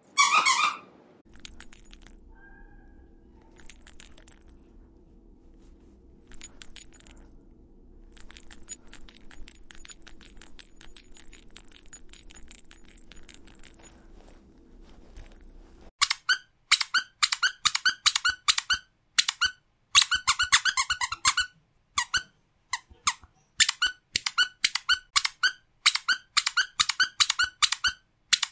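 Dog squeaky toys being squeezed, one toy after another. First comes a brief loud squeak, then short bursts of very high, thin squeaks over a faint low hum. About halfway through, a different toy takes over and is squeezed rapidly, several fuller squeaks a second.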